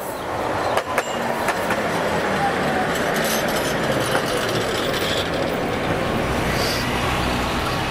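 A tram running past at close range: a steady rumble of steel wheels on the rails, with a few sharp clicks in the first second or so.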